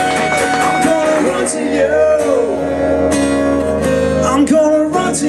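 Live acoustic duo performance: strummed acoustic guitar with a singing voice.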